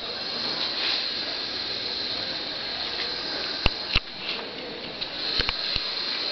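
Snoring: a steady, rattling noise that runs throughout, with a few sharp clicks, two near the middle and three more shortly after.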